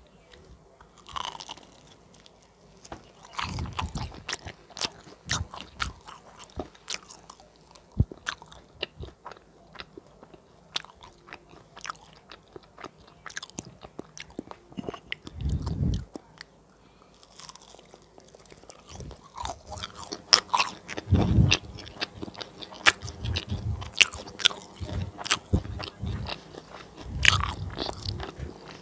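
Close-miked biting and chewing of crispy fried banana fritters (bánh chuối chiên): many sharp, crackly crunches, with a few low, muffled thuds in between.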